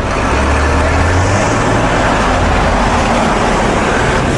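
Steady rush of road and wind noise from a moving car, picked up outside the car body, with a low engine drone underneath.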